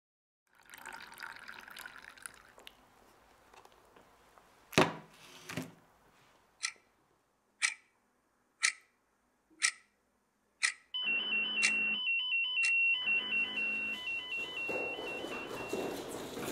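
Wall clock ticking about once a second after two louder knocks, then an electronic alarm beeping in a fast two-pitch warble that starts about eleven seconds in: a rescue station's call-out alert. Near the end a clatter of hurried movement rises under it.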